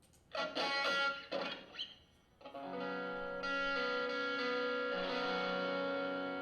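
Electric guitar through effects, amplified: a few quick picked notes and short chord hits, then about two and a half seconds in, chords ring out and are held, changing once a second later.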